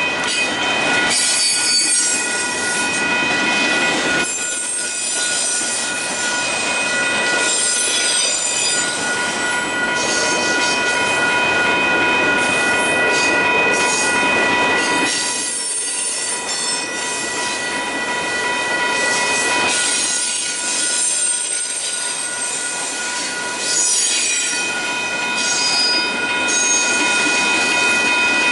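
BNSF freight train of autoracks and boxcars rolling past, its steel wheels squealing and clattering on the rails, with the grade-crossing signal bell ringing steadily.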